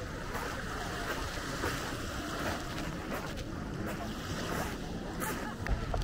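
Beach ambience: surf washing in with a steady rush of sea noise, and wind buffeting the microphone, heavier just before the end.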